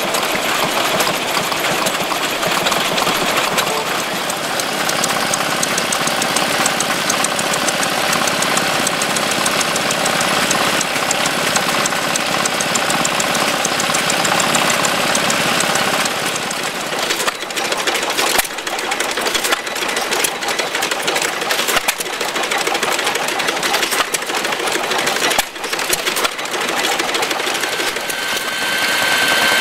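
An engine running with a fast, even knocking. About halfway through the beat turns uneven, with irregular sharp knocks.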